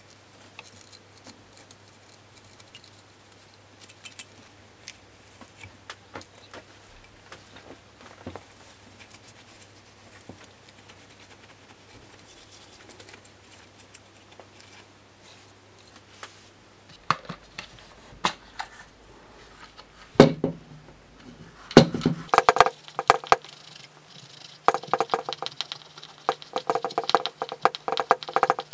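Plastic parts of a Dyson DC62 stick vacuum, its rear cover and clear dust bin, being handled and wiped with a cloth: faint scattered clicks and rubbing at first, turning into louder, busier plastic knocks and rubbing from about two-thirds of the way in.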